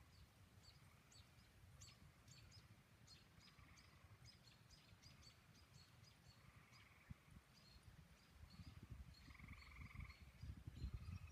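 Faint, rapid chirping of small birds: dozens of short, high notes that slide downward, over a low rumble that grows toward the end.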